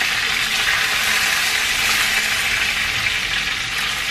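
Chicken pieces sizzling steadily in hot oil in a cast-iron skillet, fried to golden brown.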